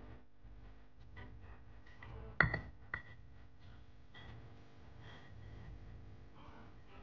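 Stone pestle grinding a watery garlic marinade in a stone mortar (Indonesian ulekan and cobek): faint scraping and rubbing, with two sharp knocks about two and a half and three seconds in.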